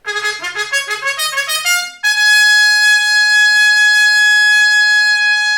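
Trumpet playing a quick run of short notes, then holding one long high note from about two seconds in.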